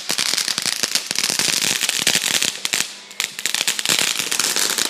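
Consumer firework giving off a dense, rapid stream of crackling pops, with a brief lull about three seconds in.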